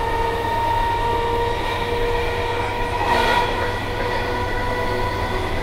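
Class 319 electric multiple unit (319012) heard from inside its motor car while running: the steady whine of its traction motors and gearing at a constant pitch over the rumble of the wheels on the track. The noise swells briefly a little past halfway.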